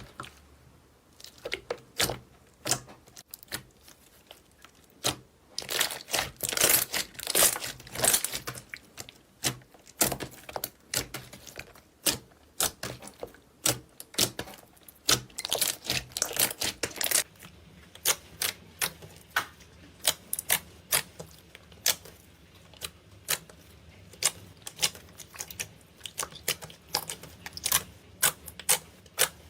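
Slime being squeezed, poked and stretched by hand, giving sticky clicks and pops. There are two longer stretches of dense squishing and crackling, and a quick run of crisp clicks in the last third.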